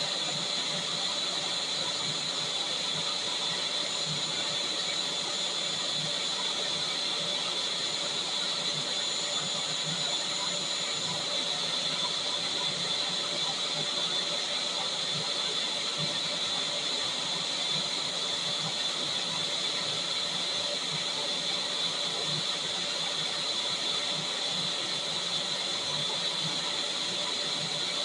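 Vacuum cleaner motor running steadily: a continuous airy whine with a high hiss and no change in pitch or level.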